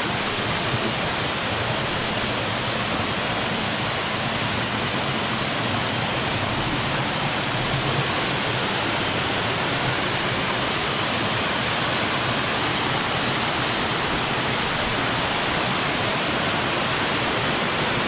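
Small waterfall cascading over sloping rock slabs, a steady rush of water.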